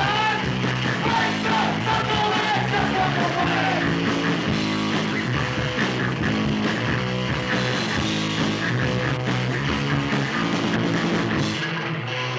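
Live hardcore punk band playing: distorted electric guitar, bass and drums, with shouted vocals for the first few seconds, then an instrumental stretch.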